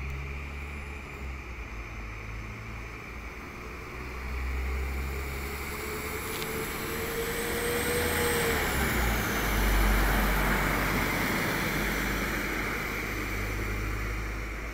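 Northern passenger train passing through the station: a low engine drone under a whine that rises, then falls away about nine seconds in, with wheel-and-rail noise building to its loudest about ten seconds in and easing after.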